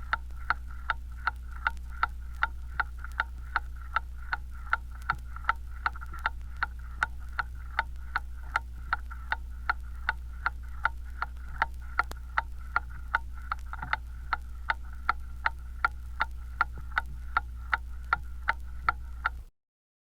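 Large mantle clock ticking steadily, with evenly spaced sharp ticks over a low hum. The ticking cuts off suddenly near the end.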